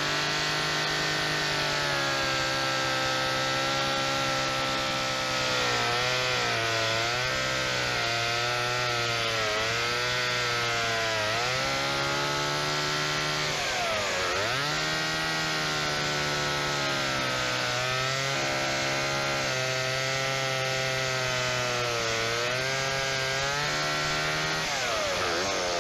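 Chainsaw running at speed while cutting into a large pumpkin to take its top off. Its pitch sags and recovers again and again as the chain bites. About midway it drops sharply and revs back up.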